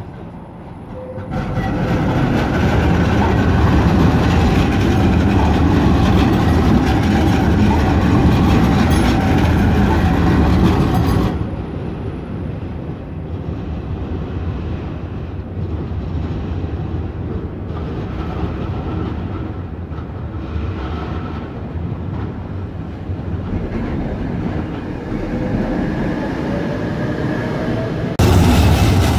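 Electric city trams running on street track: one passes close with loud, steady wheel and running noise that stops suddenly about eleven seconds in. Then a tram is heard more quietly from farther off, with a rising whine building late on, and the level jumps back up near the end as a tram passes close again.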